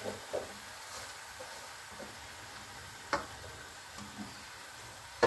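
Faint sizzling of half-cooked masala in a metal kadhai under freshly added raw cauliflower, potato and peas. A few light knocks of the spoon on the pan come through, the clearest about three seconds in.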